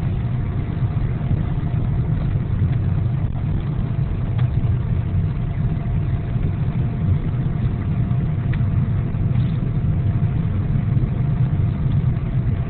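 Steady low engine and road rumble of a car driving, heard inside its cabin, with a faint steady whine over it.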